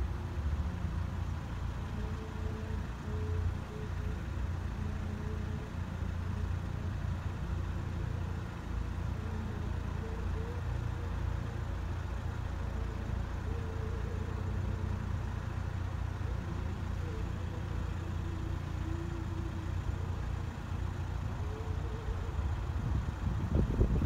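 Idling cars and lorries queued at the road, a steady low engine rumble, with a few louder low knocks near the end.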